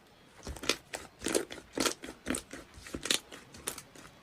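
Crunchy snack being bitten and chewed, a quick irregular series of crisp crunches, about three or four a second.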